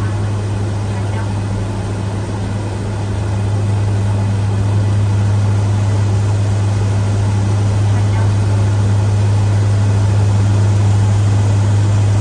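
Steady low droning hum of aircraft engines heard inside the cabin, with an even rush of noise that grows slightly louder a few seconds in.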